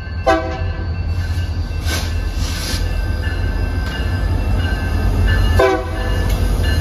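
Diesel locomotive running with a steady low rumble and sounding its horn in two short blasts about five seconds apart, with a crossing bell ringing repeatedly underneath.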